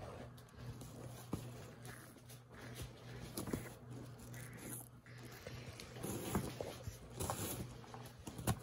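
Chef's knife chopping onion on a cutting board: irregular knife taps on the board, busier in the last few seconds, over a low steady hum.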